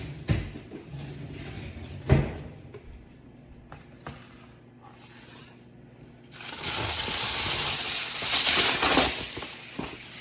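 Aluminium foil being pulled off the roll and crinkled, a loud dense rustle starting about six seconds in. Before it come two sharp knocks.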